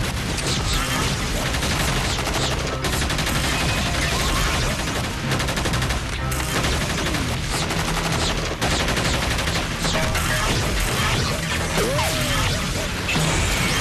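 Continuous battle gunfire: many automatic weapons firing at once, the shots overlapping with no break, as in a staged TV firefight.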